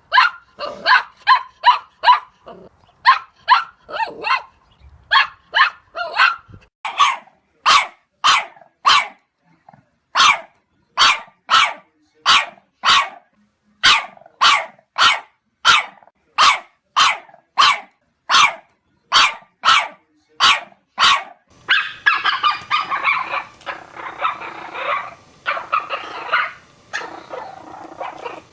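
Puppies barking: a long run of sharp, high-pitched barks, one or two a second, that turns about three quarters of the way through into a denser, nearly continuous stretch of yapping.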